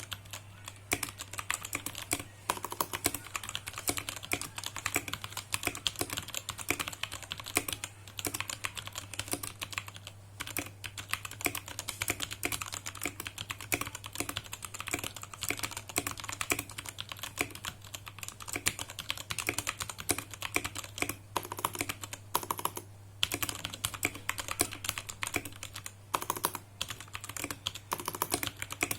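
Continuous fast typing on a Vortexseries VX5 mechanical keyboard with stock 50 g Outemu Brown tactile switches and clipped, tape-sealed stabilisers, keys clacking in quick runs. There are brief pauses about ten and twenty-three seconds in.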